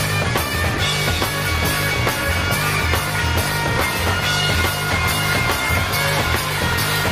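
Instrumental hard rock passage: electric guitar over a repeating bass line and drums, with cymbals struck in a steady beat.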